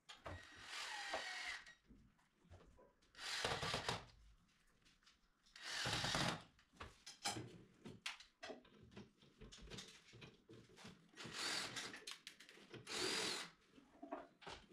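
Cordless drill running in about five short bursts of up to a second and a half, its whine rising and falling as each starts and stops, while working on the metal frame of a pull-out spice rack on a wooden cabinet panel. Small knocks and clicks of handling come between the bursts.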